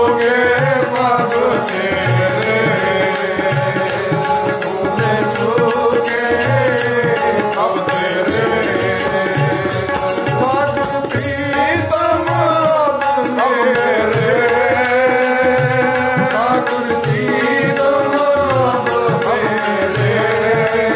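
Shabad kirtan: male voices singing a devotional hymn over harmonium, with tabla keeping a steady, even beat.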